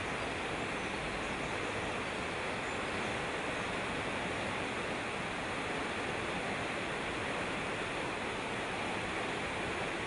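Mountain stream rushing and splashing down small cascades over rocks: a steady, even rush of water.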